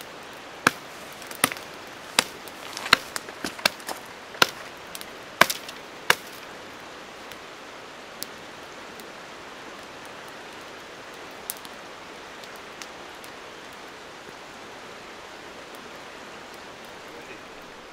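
Steady rush of a fast-flowing river, with a run of sharp knocks about one every half second to second during the first six seconds, then only a few scattered clicks.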